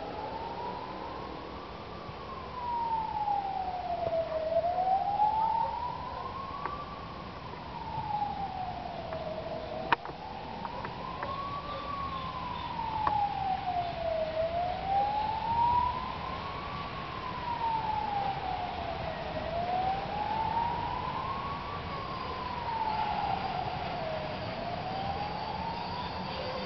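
A siren wailing, its pitch rising and falling steadily about once every five seconds, with a single sharp click about ten seconds in.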